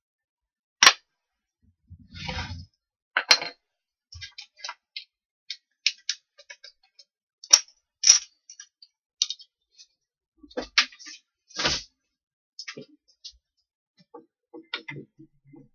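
Tools and workpieces being handled on a wooden workbench: a string of irregular clicks and knocks, a few of them sharp, with a short scraping noise about two seconds in.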